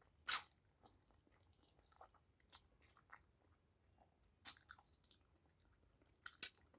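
Close-miked chewing of spicy kimchi ramen: scattered wet mouth clicks and smacks, the loudest about a third of a second in, and another cluster near the end.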